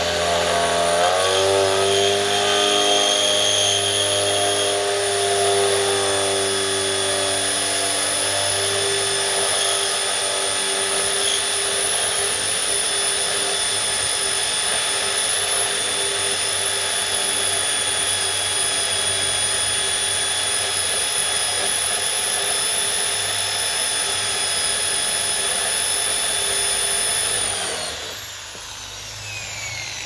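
Maktec electric drill running under load, boring through the steel shaft of a washing machine gearbox. Its motor pitch drops about a second in as the bit bites, holds steady, then stops near the end.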